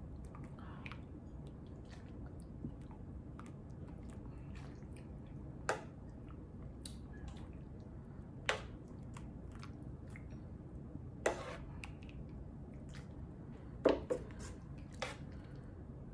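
Close-miked eating of chicken noodle soup: soft chewing and wet mouth sounds over a low steady hum, broken by five louder, sharp sounds a few seconds apart.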